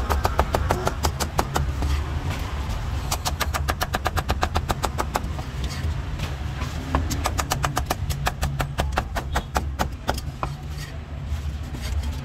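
Heavy cleaver chopping crispy roast pork on a round wooden chopping block: fast, even knocks about five a second, thinning out near the end, over a steady low rumble.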